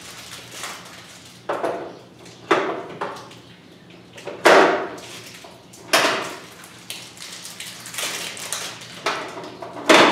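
Knocks and clatter of hard plastic from an enMotion automatic paper towel dispenser being handled while batteries and a paper towel roll are fitted into it: a string of sharp knocks a second or two apart, the loudest about four and a half seconds in, with quicker rattling near the end.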